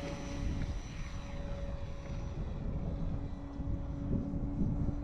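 Electric motor and propeller of a radio-controlled model plane whining at a steady pitch in flight, over an uneven low rumble.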